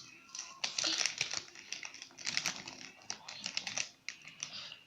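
Plastic snack bag crinkling and crackling in quick irregular clicks as a hand rummages in it, busiest from about half a second in and fading near the end.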